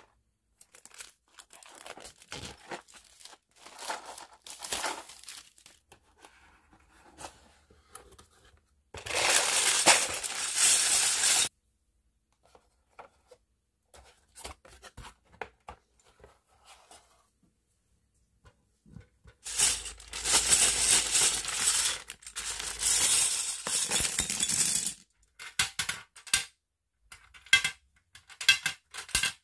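Unwrapping a boxed toy: light handling and rustling, then plastic shrink wrap torn and crinkled loudly for a couple of seconds, and later a longer spell of tearing and crinkling of wrapping. Near the end, small plastic puzzle pieces click and clink as they drop into the toy's frame.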